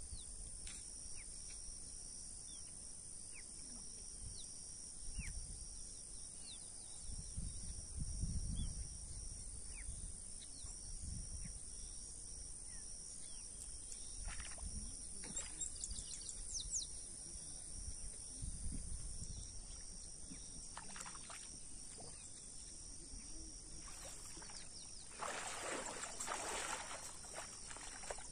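Insects trilling steadily at a high pitch in a pulsing rhythm, with wind gusts rumbling on the microphone. Near the end, a few seconds of water splashing and sloshing in the reedy shallows.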